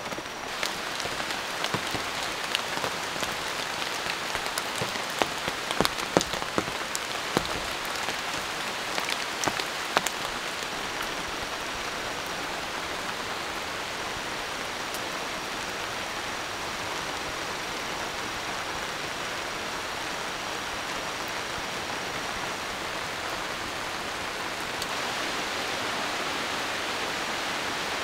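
Steady rain falling, with scattered sharp drop taps in the first ten seconds; near the end the rain sound becomes brighter and a little louder.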